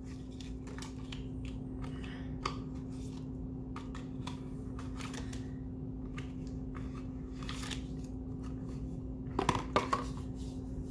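A deck of oracle cards being shuffled by hand: irregular soft clicks and slaps of the cards, a little louder near the end, over a steady low hum.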